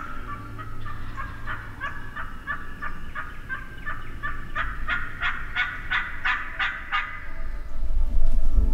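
Turkey calling: a run of short repeated notes, about three or four a second, growing louder over the last few seconds and stopping about seven seconds in.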